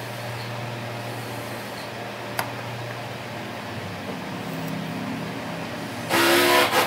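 A steady low hum with a single sharp click about two and a half seconds in. Near the end comes a loud horn-like blast with one pitched tone, lasting under a second.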